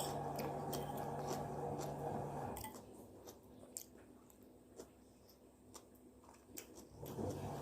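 A person eating rice and crunchy fresh kimchi: faint chewing with small scattered clicks. A steady low hum stops about two and a half seconds in and comes back near the end.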